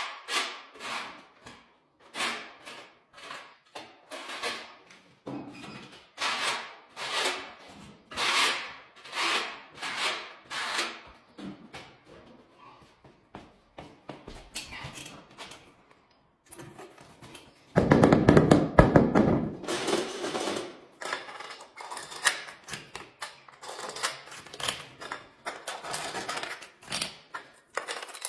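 Tile-setting work: short scraping strokes repeating every half second or so, a loud rough scraping bump about eighteen seconds in, then quick rattling clicks of plastic tile-levelling caps being screwed down onto their clips.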